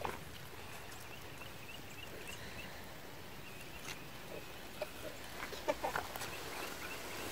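Birds calling outdoors: a quick run of short, high chirps, then a few short calls and clicks near the end.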